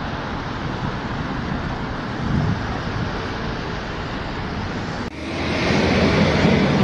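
Steady rush of wind and road traffic noise on the microphone. About five seconds in it cuts abruptly to a louder, fuller rush of traffic noise.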